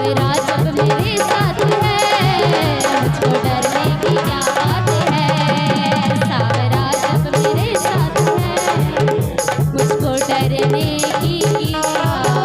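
Indian devotional bhajan music, an instrumental passage: a fast, steady hand-drum rhythm under a wavering melodic line.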